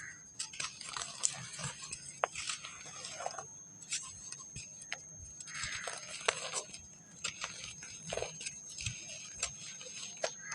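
Packed dry sand crumbling and crunching as it is broken apart, with irregular sharp crackles and short grainy rustling bursts.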